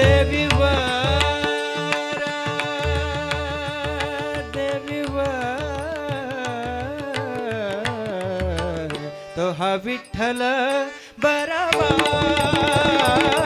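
Male devotional singer holding a long, gliding wordless melodic passage over a steady harmonium drone, with repeated low strokes from the tabla and pakhawaj. Near the end the voice breaks off for a moment, then the full ensemble comes back in louder as he sings "Vitthal".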